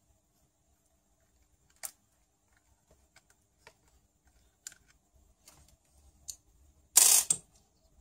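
Small clicks and ticks of a screwdriver and metal screw as a screw is backed out of the plastic front suspension arm of a Wltoys A959 RC buggy. Near the end comes one louder, brief scraping clatter of parts handled on a wooden table.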